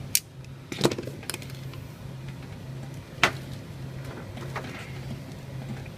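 A few sharp clicks and knocks from the metal casement window crank operator being handled and pulled out of its opening in the frame, over a low steady hum.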